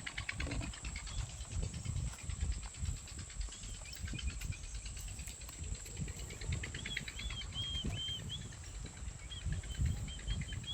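Outdoor rural ambience: insects chirping in a rapid pulsing trill over a steady high whine, with a bird giving short repeated chirps from about six seconds in. An uneven low rumble runs underneath.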